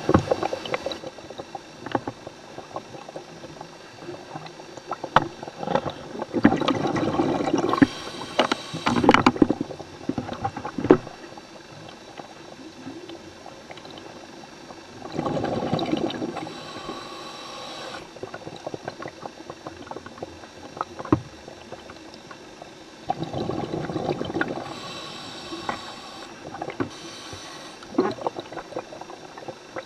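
A scuba diver's regulator breathing underwater: three bouts about eight seconds apart, each a bubbling rush followed by a hiss, with scattered sharp clicks in between.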